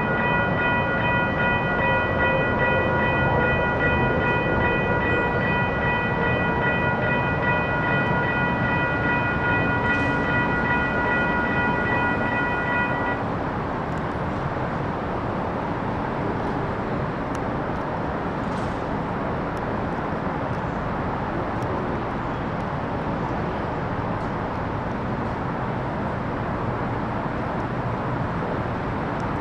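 Railroad grade crossing warning bells ringing steadily, stopping about 13 seconds in. A train rumbles under them throughout, and the rumble carries on after the bells stop.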